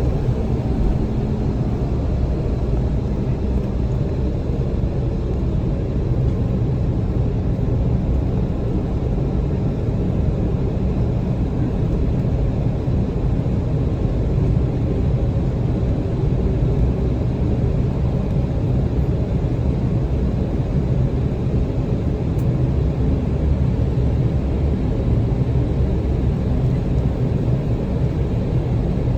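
Embraer 190 jet airliner's General Electric CF34 turbofans and airframe giving a steady, loud, low rumble, even throughout.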